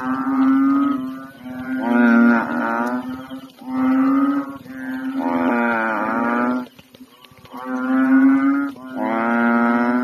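Several large frogs calling in a pond at night: loud, low, cow-like moaning calls about a second long each, about six of them in turn, some overlapping, with a short break near seven seconds in.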